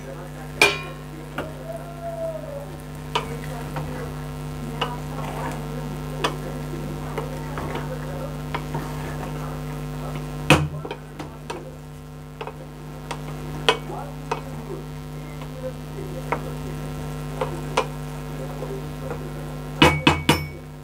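Metal spatula stirring part-cooked pulao rice and peas in a steel pot, with irregular clinks and scrapes against the pot's side, a few sharper knocks, and a cluster near the end. A steady low hum runs underneath.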